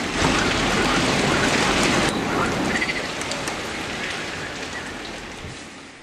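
Steady rain falling on foliage and wet ground, a dense even hiss, fading out over the last three seconds.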